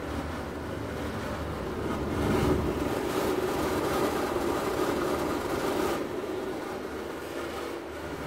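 Broan Ultra Series ceiling exhaust fan running with a steady motor hum. About two seconds in, a louder rushing noise rises over it for some four seconds, then drops away.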